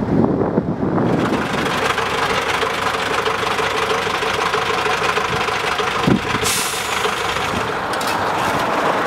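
Road milling machine at work: a heavy engine's steady drone under a dense noisy rumble, with a brief hiss about six and a half seconds in.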